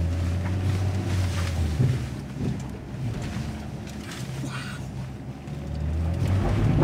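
Ineos Grenadier 4x4's engine pulling at low revs under light throttle, heard from inside the cabin as the vehicle crawls up a rocky off-road track, with occasional knocks and rattles from the body over the rocks. The engine drone eases off in the middle and builds again near the end.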